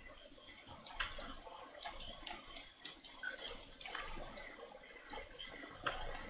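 Computer mouse clicking: a scatter of short, light clicks, some in quick pairs, over faint hiss.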